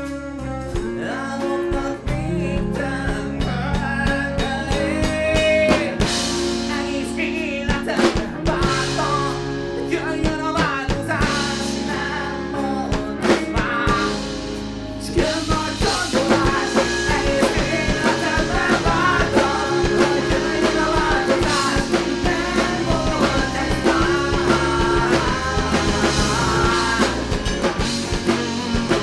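A live rock band plays a guitar-led song with singing. About halfway through, the full band comes in fuller and louder with drums.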